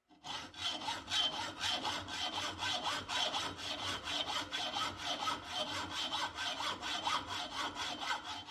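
Hacksaw cutting through a metal sling swivel stud clamped in a vise, in quick, even back-and-forth strokes that stop right at the end.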